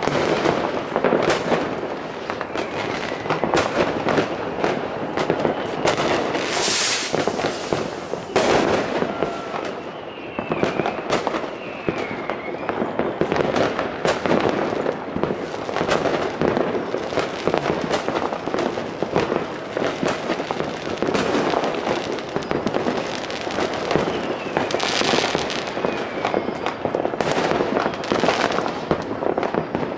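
New Year's Eve fireworks going off without pause: a dense barrage of overlapping firecracker cracks and rocket bangs, with a few short whistling tones from whistling rockets around the middle.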